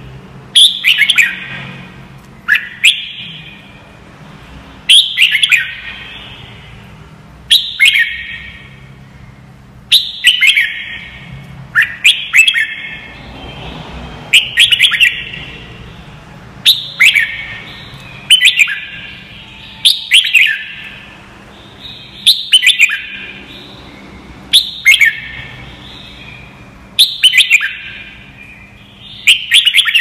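Red-whiskered bulbul singing: short, bright song phrases repeated about every two seconds, each opening with a sharp note.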